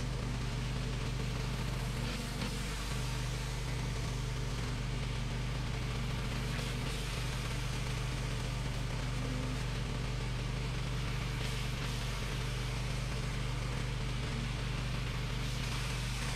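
Pressure washer running steadily, its engine holding one even pitch under the hiss of water spraying from a rotary surface cleaner pushed across concrete.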